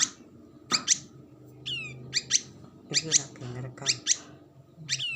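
Small songbirds chirping: short, sharp, high chirps, often in pairs, about once a second, with a quick falling trill about two seconds in and another near the end. A faint low hum sits underneath.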